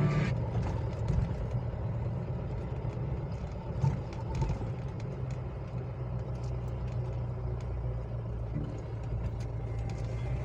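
A vehicle's engine running as a steady low hum heard from inside the cabin, driving slowly over a rough, potholed dirt road, with scattered light knocks and rattles.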